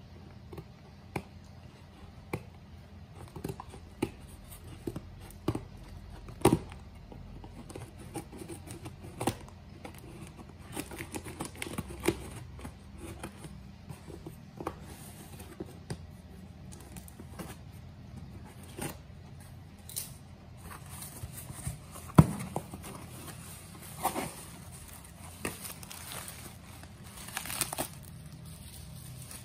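Scissors snipping and scraping through packing tape on a cardboard box, with tape and cardboard tearing and many sharp clicks. Near the end, plastic bubble wrap crinkles as it is pulled out of the box.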